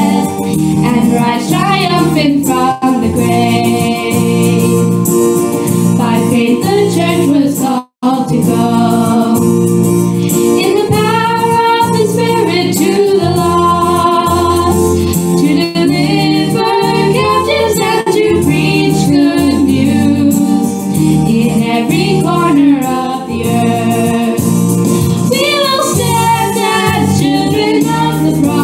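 Christian devotional song with choir singing over instrumental accompaniment, with a brief break about eight seconds in.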